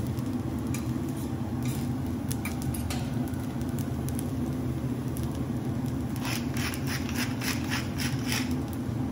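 Steady low hum with faint crackling from fried rice resting on a hot steel teppanyaki griddle. About six seconds in comes a quick run of about eight rhythmic rattling strokes as seasoning is dispensed over the rice.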